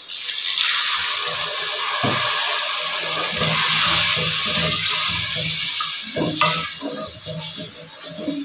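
Water poured into a pot of hot frying masala, hissing and sizzling in the oil, while a wooden spoon stirs and scrapes the aluminium pot. The hiss fades after about six seconds, leaving the stirring strokes.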